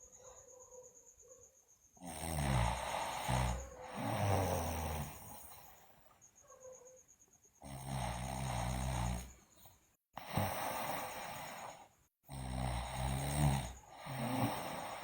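A sleeping girl snoring loudly: rough, rattling breaths of one to two seconds each, in three rounds of about two breaths, roughly every five seconds.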